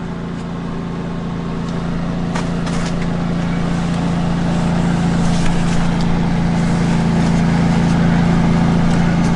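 Portable generator engine running steadily, a low hum that grows gradually louder, with a couple of faint ticks a few seconds in.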